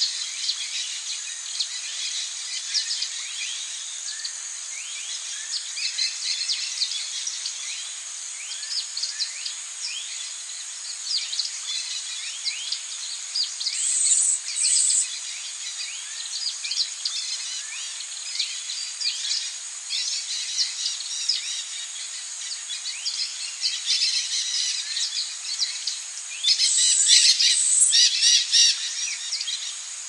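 Wild birds chirping and calling, with many quick downward-sliding notes overlapping, over a steady high hiss. Louder high bursts come briefly about fourteen seconds in and again for a few seconds near the end.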